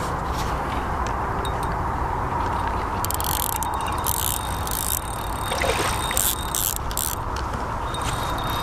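Fishing reel clicking in short bursts, about three seconds in and again about six seconds in, as a hooked carp is played close to the bank. A steady hiss runs underneath.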